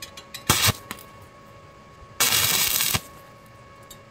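Stick (arc) welding electrode striking an arc on steel plate and square tube: a few light scratching clicks, a brief crackling arc about half a second in, then a steady arc crackle just under a second long that cuts off suddenly, like short tack welds.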